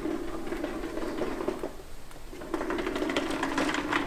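Metal spatula scraping and ticking against the crepe griddle as it is worked under the crepe's edge, louder in the second half, over a steady low hum.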